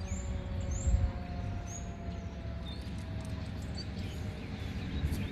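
Distant outdoor tornado warning siren, a faint tone slowly sliding down in pitch, over a steady low rumble. Birds chirp briefly a few times.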